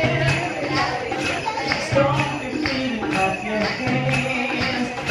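Live music with jingle bells shaken to a steady beat, with voices and low pitched notes over it.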